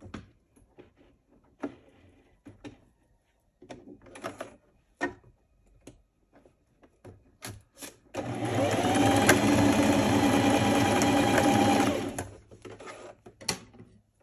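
Light clicks and rustles, then an electric domestic sewing machine starts about eight seconds in and runs steadily for about four seconds, stitching a seam, before stopping.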